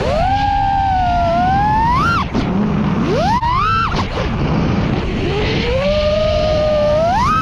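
FPV quadcopter's brushless motors and propellers whining, the pitch climbing sharply with each throttle punch and dropping back, three times, over a rush of wind and prop noise.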